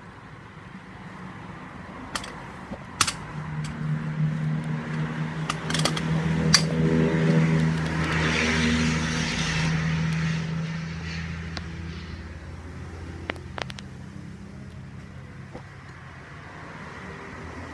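A motor vehicle passes by: its engine hum swells over several seconds, peaks with tyre noise, then fades. A few sharp metallic clicks come from the crankshaft assembly being handled.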